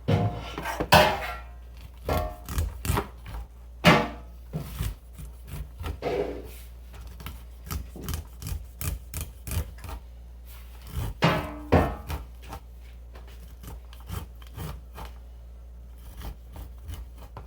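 Knife cutting kernels off fresh green corn cobs: irregular scraping strokes and short knocks of the blade.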